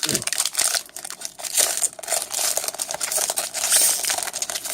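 Plastic trading-card pack wrapper being crinkled and torn open by hand, a dense crackling rustle.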